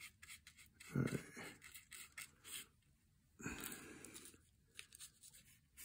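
Faint scratchy strokes of a wet flat paintbrush on cardboard, with a brief low murmur of voice about a second in.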